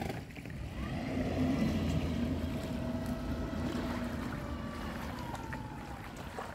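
A motor vehicle passing by. Its engine and tyre noise swells over the first two seconds and then slowly fades, with a steady hum whose pitch sinks a little as it moves away.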